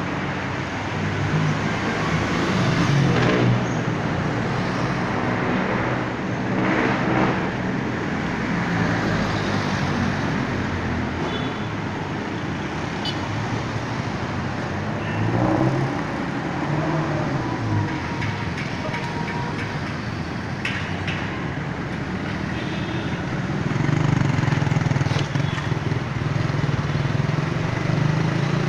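City street traffic: jeepney, motorcycle and bus engines running and passing, with engine revs rising and falling. A heavier engine rumble swells near the end.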